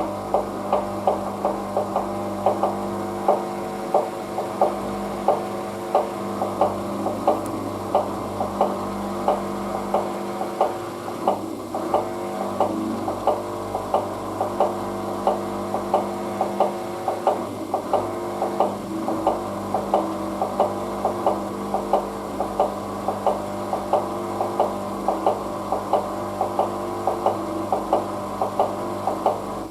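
Hoover DYN9144D3X washing machine's motor turning the drum at a steady speed in its first intermediate spin. It gives a steady hum with regular knocks, then stops suddenly at the end.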